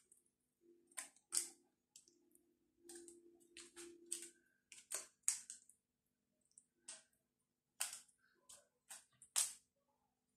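Metal spoon smoothing a soft cottage cheese and rice mixture in a parchment-lined baking pan: quiet, irregular clicks and scrapes as the spoon pats and drags across the mixture and paper.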